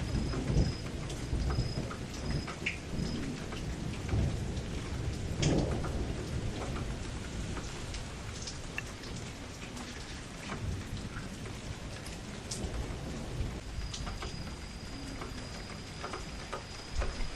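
Steady rain falling and pattering, with low rumbles of thunder swelling now and then, loudest in the first six seconds.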